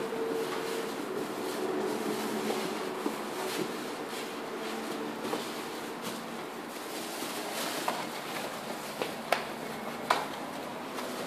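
Plastic wrapping and cardboard rustling as a boxed LED TV is handled inside its carton, over a steady hum. Two sharp knocks near the end.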